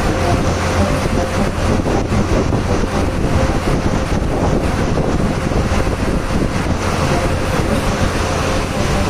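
A river boat's engine running at a steady pace, a constant low hum with a few steady tones, under the rush of wind and water as the boat moves along.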